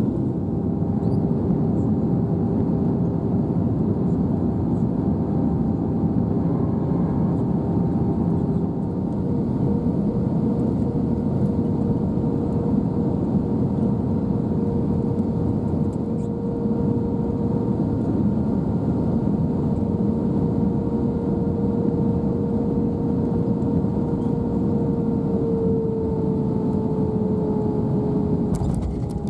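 Airbus A320-200 cabin noise on approach: a steady rush of airflow and engine noise with a few held engine tones that shift in pitch, one bending downward near the end as the engine power changes.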